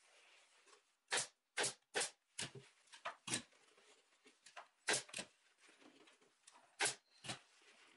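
Upholstery staple gun firing staples into folded leather: about nine sharp shots, irregularly spaced and several in quick pairs.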